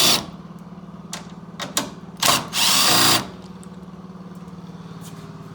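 Power drill spinning out the 10 mm bumper bolts: a short whir right at the start, then a second run of about a second with a rising whine, and a couple of small clicks between them. A steady low hum runs underneath.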